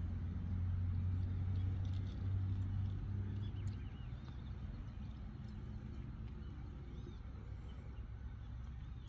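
Low, steady hum of a running vehicle motor, strongest for the first three to four seconds and then fading.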